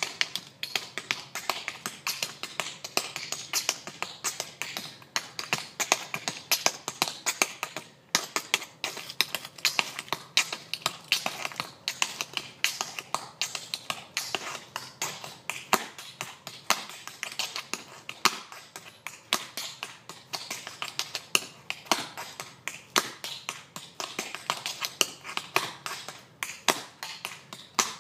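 Tap shoes striking a concrete walkway in quick, uneven runs of sharp taps, several a second, with a short break about eight seconds in.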